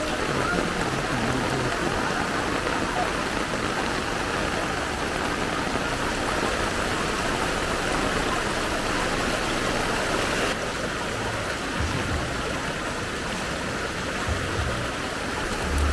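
Steady rushing of fast-flowing floodwater, mixed with rain; the hiss thins a little about ten seconds in.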